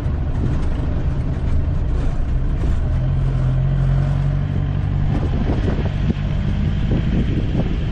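Songthaew pickup-truck shuttle driving along a road, heard from its open rear: a steady engine drone with rumbling road noise.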